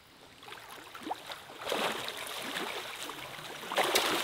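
Rushing, splashing river water that swells up a little under halfway in and stays, with a louder surge near the end.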